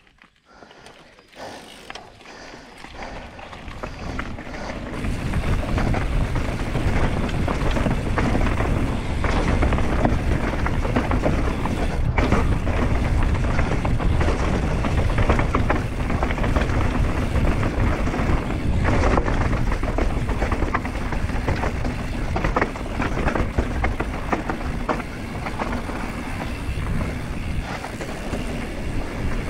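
Mountain bike rolling fast down a dirt forest trail, heard from on the bike: tyre rumble over the ground with a steady clatter of chain and frame. It builds over the first few seconds as the bike picks up speed, then holds.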